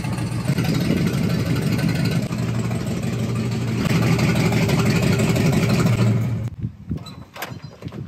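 Lifted Chevrolet square-body pickup truck's engine running as the truck manoeuvres at low speed. It grows louder about four seconds in, then stops abruptly about six seconds in, followed by a few light knocks.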